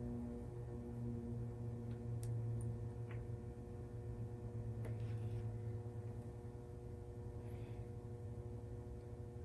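Steady low electrical hum with a few faint clicks and rustles of small parts being handled.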